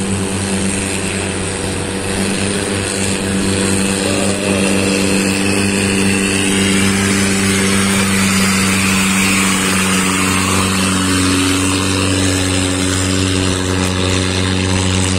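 A boat engine running steadily under way, a low hum with evenly stacked tones, while a speedboat's outboard engine and spray swell up around the middle as it passes close by and then fade.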